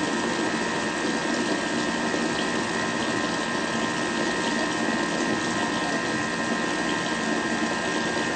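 Thermomix kitchen appliance running steadily at whipping speed, churning chilled cream into whipped cream, with a constant whir.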